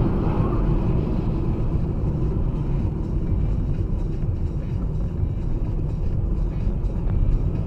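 Steady low rumble of a car driving along a road, engine and tyre noise heard from inside the cabin by a dashcam's microphone.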